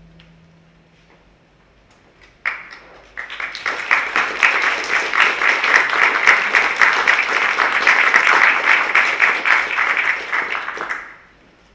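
Audience applauding: the last low note of the music dies away, a single loud clap comes about two and a half seconds in, then full, dense applause starts about a second later and stops abruptly near the end.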